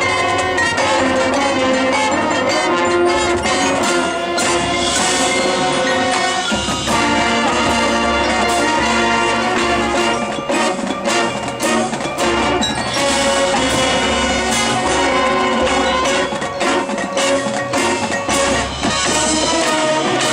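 Marching band playing: brass sustaining chords over drums, with stretches of rapid percussion strikes around the middle and again near the end.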